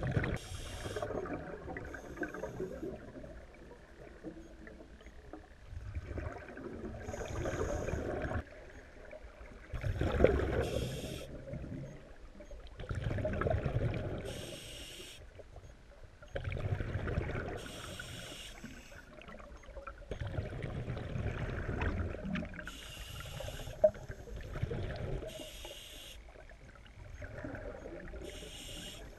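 Scuba divers breathing through their regulators underwater: hissing breaths and gurgling rushes of exhaled bubbles, swelling and fading every few seconds.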